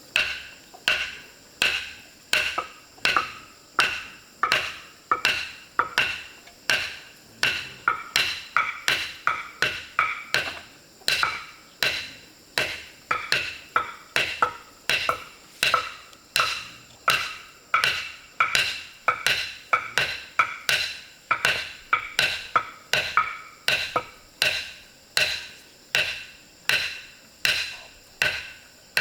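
A hand tool striking wood over and over at a steady pace, about one and a half to two strokes a second, each blow sharp with a short ringing decay.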